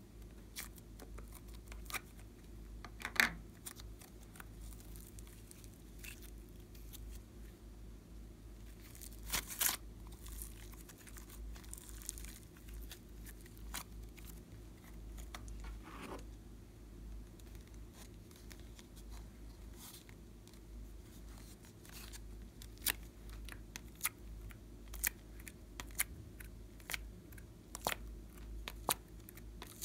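Glossy slime being pulled, folded and peeled from plastic tubs and a heart-shaped mould by hand, making many small sticky clicks and crackles with a few louder snaps.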